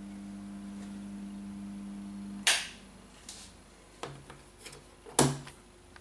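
Steady electrical hum from a variac-fed halogen lamp circuit cuts off with a loud, sharp switching click about two and a half seconds in, as the power to the lamp is switched off. A few lighter clicks follow, then a second loud click near the end.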